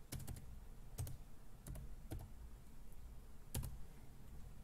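A handful of faint, separate computer keyboard keystrokes as a number is typed into a field, the last one coming after a pause of over a second.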